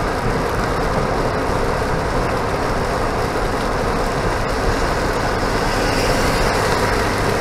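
Jeep driving at highway speed in heavy rain, heard from inside the cab: a steady mix of engine, tyres on wet pavement and rain on the vehicle.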